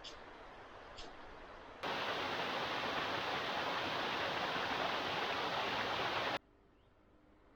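A steady rushing noise, loud and even, that starts abruptly about two seconds in and cuts off abruptly some four and a half seconds later. Before it, a faint hiss with two short high chirps.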